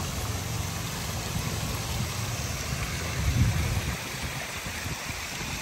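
Water spilling from a rock waterfall feature into a swimming pool, a steady rush, with a low rumble underneath that drops away about four seconds in.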